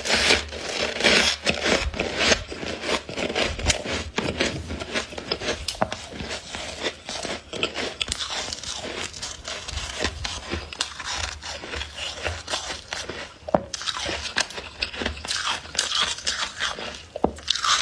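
Freezer frost being bitten and chewed: a dense run of irregular, crisp crunches.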